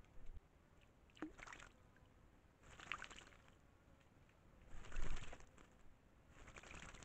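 A white-naped jay bathing in shallow water, splashing with its wings and body in four short bursts about every second and a half. The third burst is the loudest.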